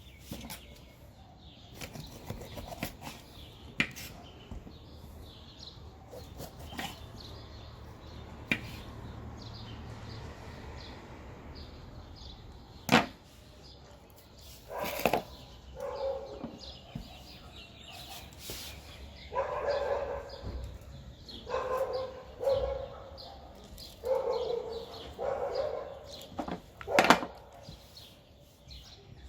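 Folding knife slicing a pepper on a board: scattered cuts and sharp knocks of the blade, the loudest about halfway through and again near the end. In the second half a dog barks several times in short calls.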